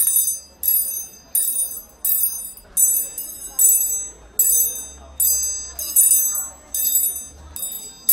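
High-pitched ringing repeated about once every 0.7 seconds, each stroke sharp at the start and fading, over a faint low hum that stops near the end.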